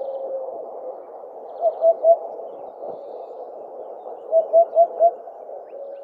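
Eurasian hoopoe singing its low, soft 'oop-oop-oop' song: a phrase of three notes about two seconds in, then a phrase of four notes near the end.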